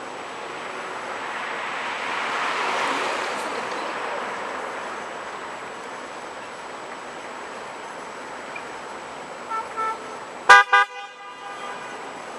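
Road traffic swelling and fading as a vehicle passes, then car horns honking: two short toots about nine and a half seconds in, followed a moment later by two louder quick honks.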